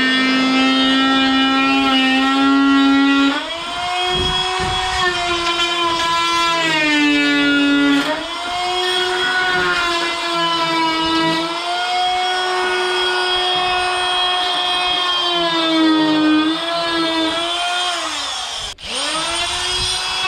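Vonroc oscillating multi-tool running under load against old wood, a loud high-pitched buzz whose pitch rises and sags as the blade is pressed into the timber and eased off. About a second and a half before the end it briefly dies away and then comes straight back up to speed.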